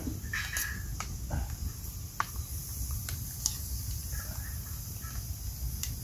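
A metal spoon clicking and scraping against an enamel bowl and a steel cooking pot as sauce is spooned over the snails: a few scattered sharp clicks over a steady low rumble.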